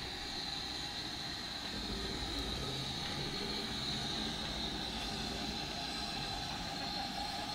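GWR 5101-class large prairie tank locomotive No. 4110 moving slowly past, with a steady hiss of steam and a low rumble that grows about two seconds in as it comes close.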